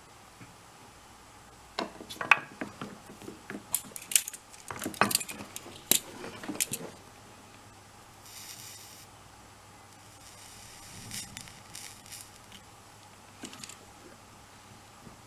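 Small tools and metal parts clicking and clinking during hand work on a screw-on 3.5mm jack plug: a quick run of sharp clicks lasting about five seconds, then a brief hiss and a few scattered clicks.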